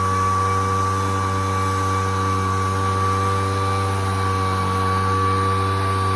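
Poulan Pro two-stroke backpack leaf blower running steadily at full throttle, its engine drone carrying a steady high whine.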